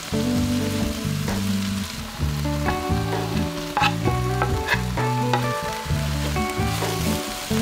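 Cubed squash sizzling in oil in an enamelled cast-iron Dutch oven, stirred with a wooden spoon. A few sharp clicks and scrapes come near the middle as chopped pieces are scraped off a wooden cutting board into the pot. Background music plays under it.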